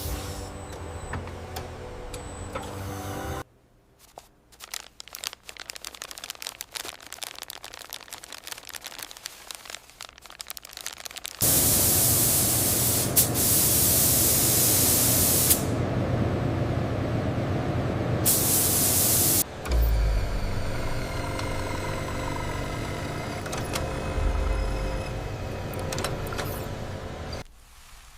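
A run of leather-factory machine sounds: a steady machine hum with several tones, then faint scattered clicks, then a loud steady hiss lasting several seconds. The hiss is followed by a thump and a lower machine noise that stops near the end.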